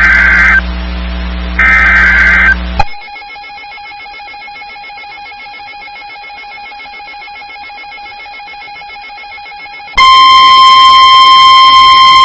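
NOAA Weather Radio SAME data bursts: two loud, harsh one-second bursts of digital tones with a hum beneath. Then a fainter steady tone for about seven seconds. About ten seconds in, the loud, steady 1050 Hz warning alarm tone begins, announcing the next warning.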